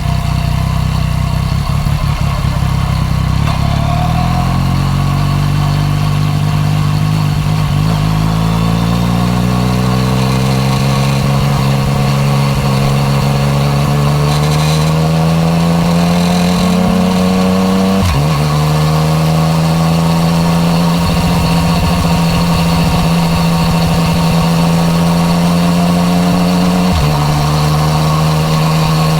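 Yamaha MT-09 Tracer's inline-three engine through an Akrapovič exhaust, accelerating at a gentle, steady rise in pitch. It shifts up quickly twice with the quickshifter, the pitch dropping suddenly about two-thirds of the way through and again near the end.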